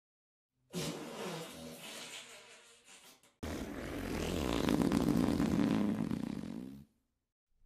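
Two long fart sound effects in a row, wavering in pitch. The first starts about a second in and fades out over two and a half seconds. The second follows straight after and is louder and longer, lasting about three and a half seconds.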